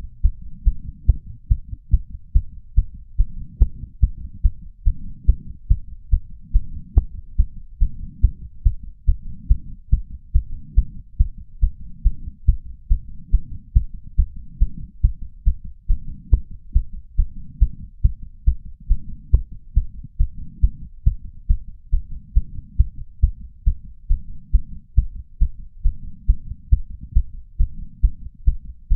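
A human heart beating fast and strong after exercise, a rapid, even run of low thumps, picked up through a small ceramic bowl on a lapel microphone.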